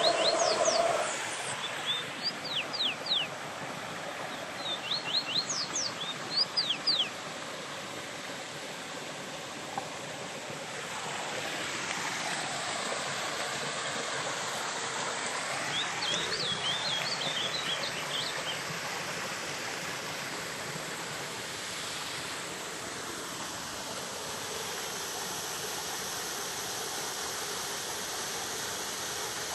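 Steady rush of water from a small waterfall and stream. A bird gives clusters of quick, sharp downward-sweeping notes several times in the first seven seconds, and again about sixteen seconds in.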